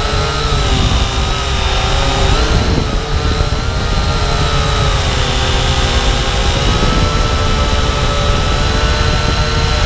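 SYMA X8W quadcopter's four brushed motors and propellers whining in flight, several pitches together that waver up and down as the throttle changes, over a low rumble.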